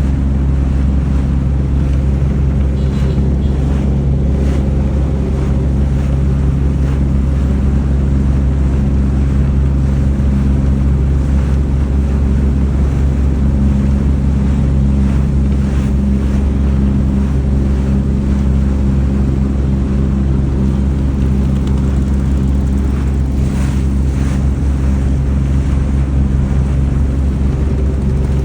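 A boat's engine running steadily with a constant low hum, with wind on the microphone and water rushing past the hull.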